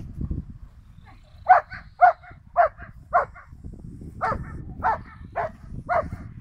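A large dog barking in a rapid series, about two barks a second: four barks, a pause of about a second, then four more.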